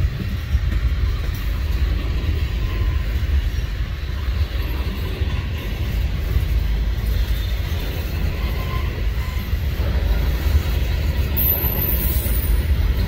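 Freight train's tank cars and covered hoppers rolling past: a steady low rumble of steel wheels on rail.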